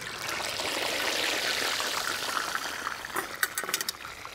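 Smoked whole chicken dropped into frying oil at about 330°F in a plow-disc fryer: the oil sizzles, swelling over the first second or two and then easing, with sharp crackling pops near the end.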